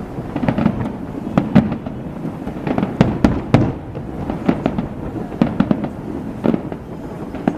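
Fireworks display: aerial shells bursting in a rapid, irregular series of sharp bangs, each followed by a short echo, over a continuous rumble of further explosions.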